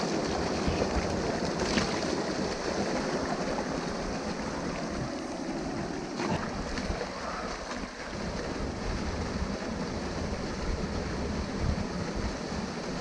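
Stream water rushing through a small gap and splashing into a muddy pool, a steady wash of noise. A couple of sharper splashes stand out, about two seconds in and again about six seconds in.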